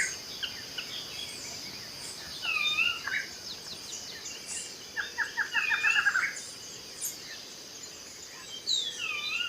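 Rainforest soundscape: birds call over a steady high-pitched insect drone. A swooping down-and-up call comes back about four times, and a quick run of about ten short notes sounds a little past the middle.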